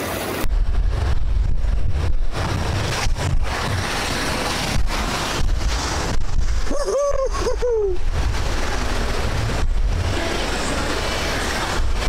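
Rushing white water of a river rapid close around a raft's bow, with heavy wind buffeting on the microphone as a deep rumble. About seven seconds in, a brief wavering call rises and falls three times over the noise.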